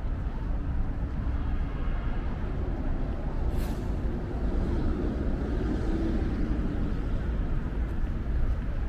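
Road traffic with a steady low rumble of vehicle engines, and a short hiss of air about three and a half seconds in.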